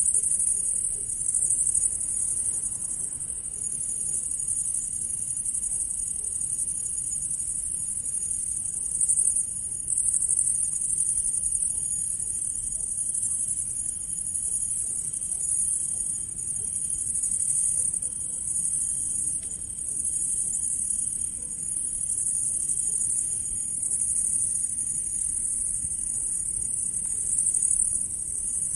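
Grasshopper chirping: a continuous high-pitched insect buzz that swells and eases slightly without stopping.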